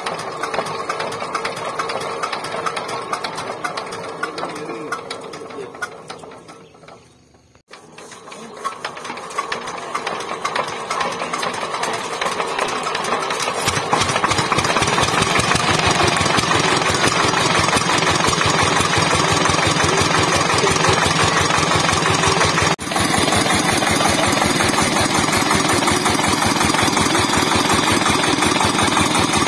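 Single-cylinder horizontal diesel engine of a two-wheel walking tractor being started. The sound dies away to almost nothing about seven seconds in, then the engine catches and builds up, puffing white smoke. From about fourteen seconds on it runs at a steady, rapid chug.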